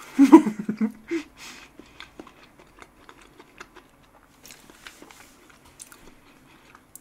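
Close-miked chewing of a mouthful of soft chocolate fresh-cream cake: wet mouth sounds and small clicks, loudest in the first second, then faint.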